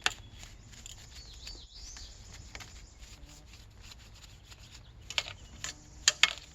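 A sharp click at the start and a cluster of sharp clicks and knocks near the end, the loudest sounds here. A bird chirps faintly about a second in.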